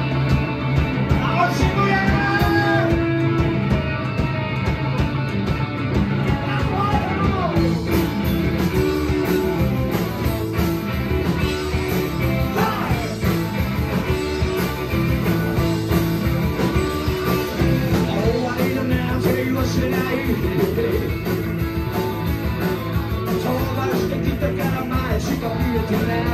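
Live rockabilly band playing an instrumental intro: electric guitars over upright bass and drums, loud and continuous.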